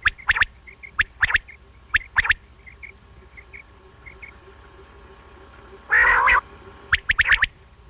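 Quail (batair) calling: sharp, clipped notes in pairs about once a second, with fainter chirps between them, a louder, harsher call about six seconds in, then a quick run of notes. It is a recorded quail call of the kind played to lure quail for hunting, over a faint steady hum.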